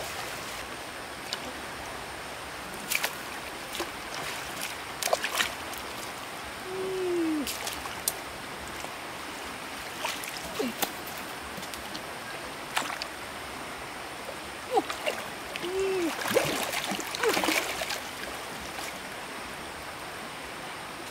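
Stream water running steadily, with irregular splashes and knocks in the water. Twice a short tone rises and then falls.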